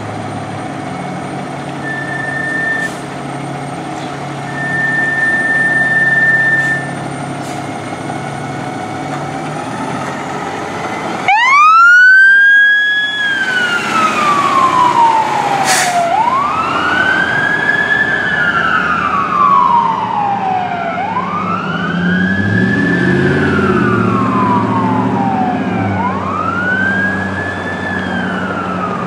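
A fire engine's engine running, with two short steady high tones early on, then about eleven seconds in its siren starts: a wail that rises quickly and falls slowly, repeating about every five seconds.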